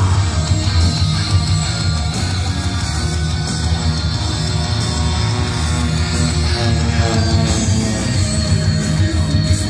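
Loud rock music with electric guitar over a steady heavy bass, played through outdoor PA speakers.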